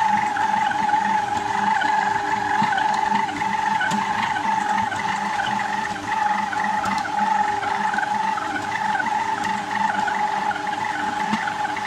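Planetary stand mixer running with a steady, slightly wavering whine as it kneads a sweet yeast dough that is coming together and strengthening.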